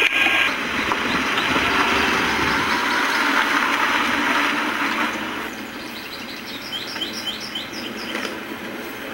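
A steady rushing noise for the first five seconds or so, then a quick run of short, high bird chirps near the end.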